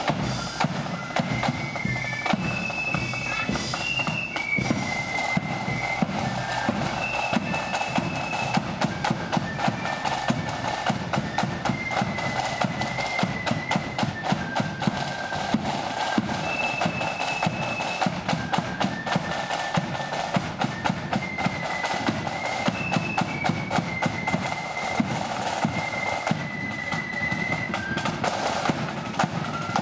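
Marching flute band playing a tune: flutes carry a high melody in unison over dense, fast drumming with a bass drum.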